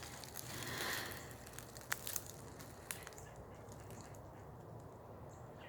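Footsteps crunching through dry leaf litter on the forest floor, with a few sharp cracks in the first three seconds, then it goes quiet.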